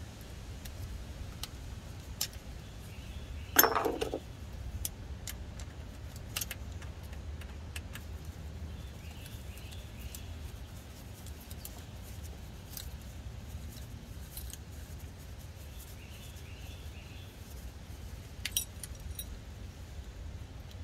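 Light scattered clicks and metallic clinks of a small screwdriver working the TCC solenoid's electrical connector and retaining clip loose on a 4R70W transmission valve body, with one louder metallic clatter about four seconds in, over a low steady rumble.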